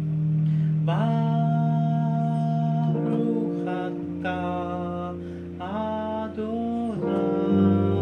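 Electric keyboard holding steady low chords while a man's voice chants long held notes over them, a healing prayer sung as a mantra. There are about five held phrases, each bending in pitch as it starts and ends.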